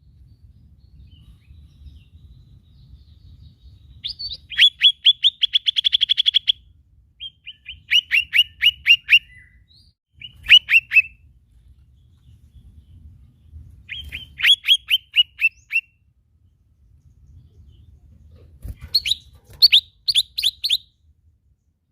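Cucak ijo mini (lesser green leafbird) singing in bursts of rapid, sharp, repeated chirps, five phrases with short pauses between. The longest phrase, about four seconds in, speeds into a fast trill.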